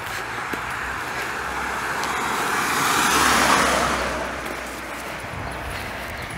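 A car driving up the lane and passing close by: its tyre and engine noise swells to a peak about three and a half seconds in, then fades away.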